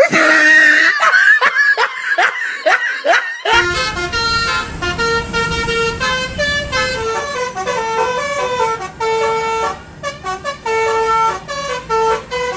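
Indonesian 'telolet' multi-tone bus horn of the Basuri type. It first gives a quick run of rising swoops for about three and a half seconds, then plays a tune of short stepped notes.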